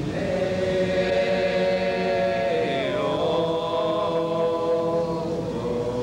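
Afro-Cuban Lucumí (Yoruba) religious chant sung with long held notes. The pitch steps down about three seconds in and is held again.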